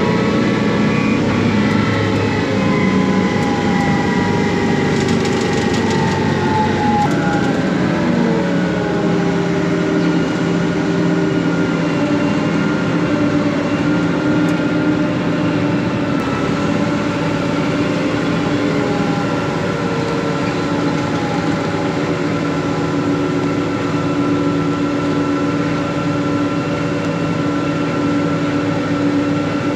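Combine harvester engine running steadily. Its pitch shifts during the first several seconds, then settles and holds.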